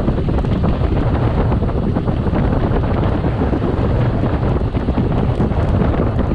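Wind buffeting the microphone of a camera on a moving road bike: a loud, steady rumbling noise.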